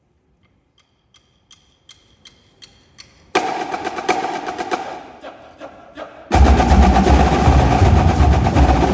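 Marching drumline starting a piece: a run of sharp stick clicks that speed up and get louder, then the snares and tenors come in loudly about three seconds in. About six seconds in, the full line including the bass drums enters, louder still.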